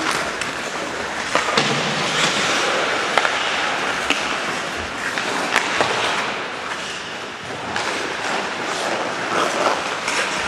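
Ice hockey play: skate blades scraping and carving on the ice in a steady hiss, with scattered sharp clacks of sticks and puck.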